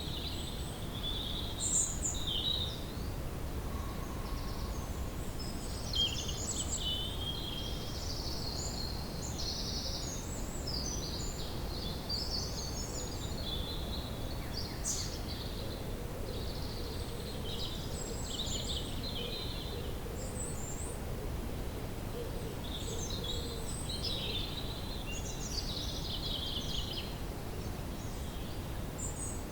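Woodland ambience: several birds chirping and singing in short, varied phrases throughout, over a steady low rumble.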